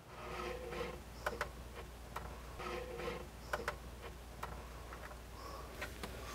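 Stainless steel sink being handled and set into a countertop cutout: scattered light clicks and taps of the metal against the counter, with short rustling scrapes as it is lowered in and pressed down onto its butyl-tape seal.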